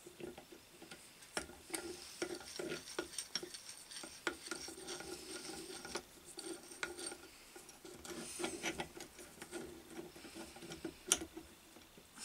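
Steel gear puller being fitted by hand onto an electric motor's shaft end: metal clinking, scraping and light irregular clicks as its jaws and screw are positioned, with one sharper click near the end.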